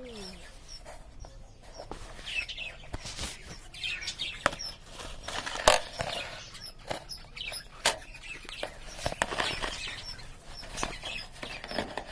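A flock of budgerigars chirping and chattering in an aviary, with some wing flutters and several sharp taps, the loudest about halfway through.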